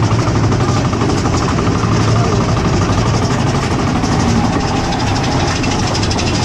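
Mine train roller coaster cars rolling along their steel track: a steady rumble and rattle of the train, heard from a seat on board.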